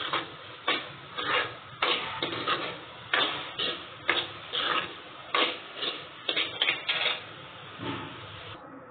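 Steel ladle scraping around a steel kadai while stirring semolina being roasted in ghee, a quick run of scrapes about two a second that stops near the end.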